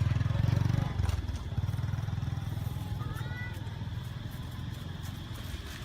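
A vehicle engine running, loudest in the first second and then fading to a lower steady level. A brief high chirp about three seconds in.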